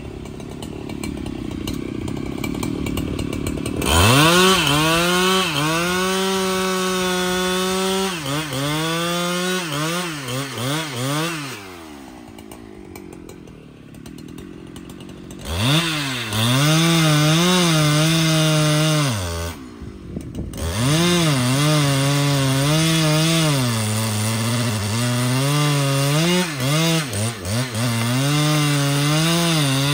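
Large Husqvarna two-stroke chainsaw running low, then opened up to full throttle about four seconds in. Its pitch wavers and sags under load as it cuts into trembesi wood. It drops back to a low speed for a few seconds in the middle, then is revved again and runs on through the cut.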